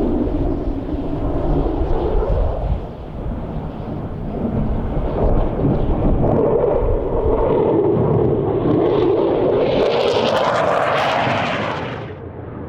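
Low-flying military aircraft passing, its engine noise swelling to a loud peak about ten seconds in and then falling away sharply near the end.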